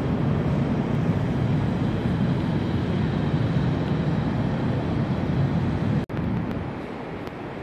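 Steady low rumbling noise of a large hall's ambience, with no distinct events, cutting out for an instant about six seconds in.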